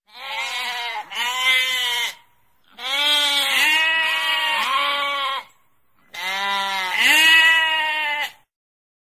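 Sheep bleating: three long, wavering bleats of two to three seconds each, with short silent pauses between them.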